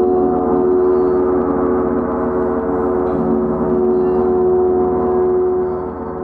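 Gong and crystal singing bowls ringing together in a sustained, shimmering wash, with one steady held tone over it. It eases off slightly near the end.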